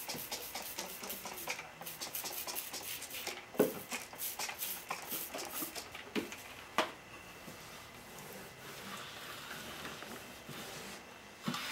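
Hand trigger spray bottle squirting Ru-Glyde tire-mounting lubricant onto a motorcycle tire bead, a quick run of sprays for several seconds, with two louder knocks about three and a half and seven seconds in.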